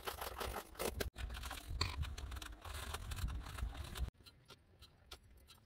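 A hand-held stone striking and crunching through a crust of ice over water, with ice chunks scraping and cracking, for about four seconds. Then the sound drops suddenly to a few soft clicks and rustles as a bunch of leeks is rubbed in the icy water.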